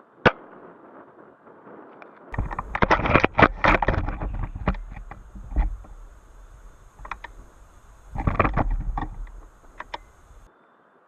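A single sharp shot from an airsoft sniper rifle. Two spells of rustling and clattering handling noise follow, about two seconds in and again near eight seconds.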